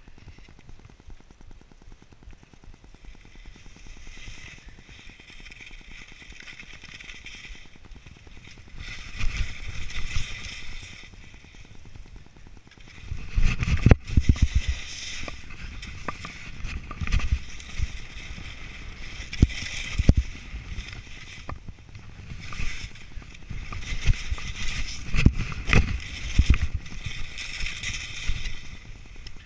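Skis scraping and hissing over snow on a run down through trees, with wind rumbling on the body-worn camera's microphone; it grows louder after about nine seconds, with repeated heavy rumbling bursts over the second half.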